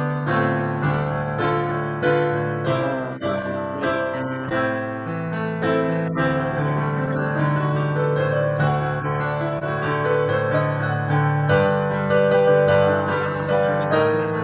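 Upright piano played with both hands, a continuous flow of chords over a sustained bass line. It is heard through a video call, so the sound is thin at the top.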